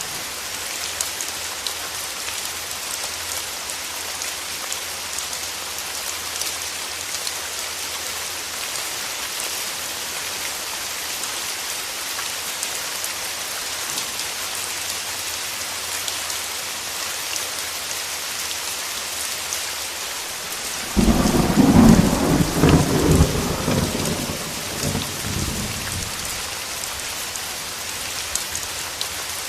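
Steady rain with fine drop patter. About two-thirds of the way in, a sudden clap of thunder breaks in and rumbles away over several seconds.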